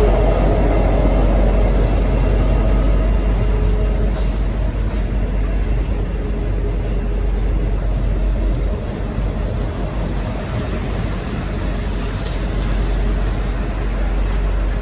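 V/Line N class diesel locomotive's EMD V12 engine running with a steady deep rumble, easing a little about halfway through.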